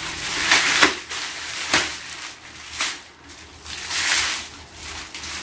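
Plastic packaging crinkling and rustling as plastic-wrapped boxes are handled, in irregular bursts with one sharper crackle a little under two seconds in.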